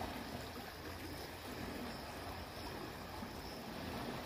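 Faint steady outdoor ambience at a rocky shore: an even hiss over a low rumble, with no distinct event.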